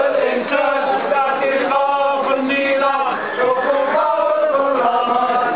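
Male voices chanting in long, held sung notes.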